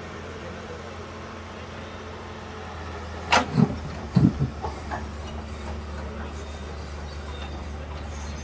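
A steady low engine rumble, with a quick run of loud knocks and clanks about three to four and a half seconds in.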